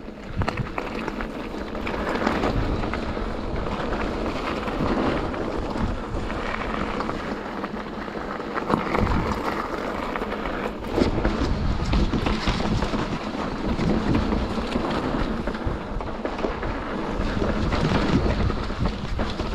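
Mountain bike riding fast down a gravel and rock trail: wind rushing over the microphone with tyres rolling on the dirt, and the bike knocking and rattling over bumps now and then.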